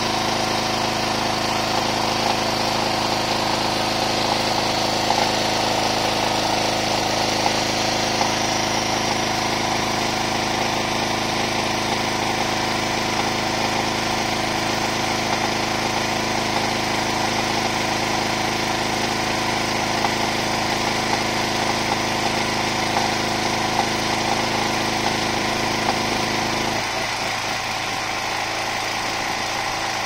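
Gigant GGL-3300 petrol generator running steadily while powering an electric kettle. Near the end its note changes suddenly and gets a little quieter as the kettle comes to the boil and its load drops away.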